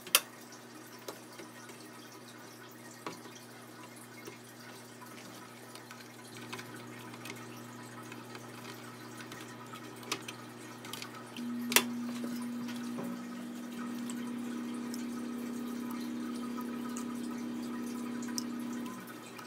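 Light clicks and taps of a spatula and fingers moving strips of bacon on a wire rack and a sheet pan. About halfway through a steady hum starts, with a sharp click, and it stops just before the end.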